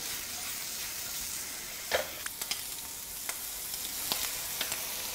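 Bacon, onion and broccoli sizzling in a frying pan while being stirred, with a few sharp clicks about halfway through.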